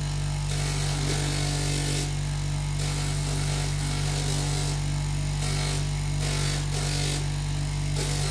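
Bench grinder motor running with a strong steady hum, while a stone is sanded dry against its 320-grit abrasive disc. The gritty grinding hiss comes and goes, breaking off briefly several times.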